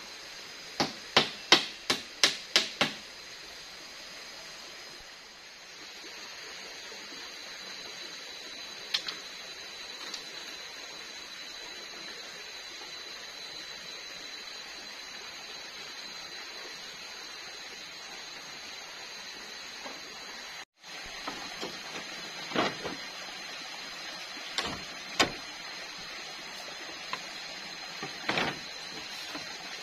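Hand hammering on bamboo: a quick run of about seven sharp knocks at the start, then, after a steady stretch, scattered single knocks near the end. A steady high hum runs underneath.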